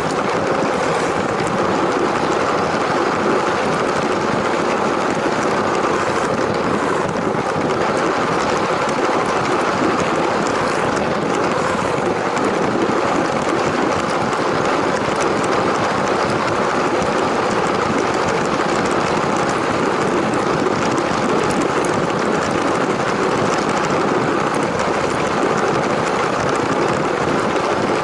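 A Lego train running along plastic track with its small electric motor, gears and wheels whirring. It is picked up close by the onboard camera and stays steady throughout.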